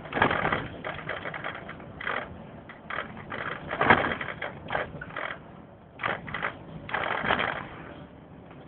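Irregular bursts of rattling and clatter inside a moving vehicle, several short knocks at a time with louder clusters about four and seven seconds in, dying down near the end.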